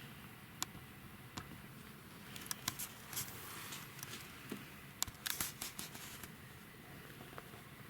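Faint rustling and light clicks in two short clusters, about two and a half seconds in and again about five seconds in: a small kitten shuffling and nuzzling in its bedding while searching for milk.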